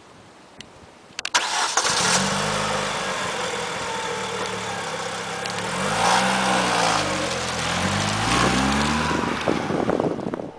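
Opel Astra OPC's four-cylinder engine starting about a second in, then idling steadily, with two short revs that rise and fall in pitch in the second half.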